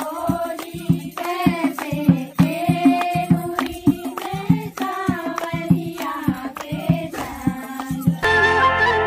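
Indian folk dance music: singing over regular drum strokes. Near the end it cuts suddenly to a different tune of long, steady held notes.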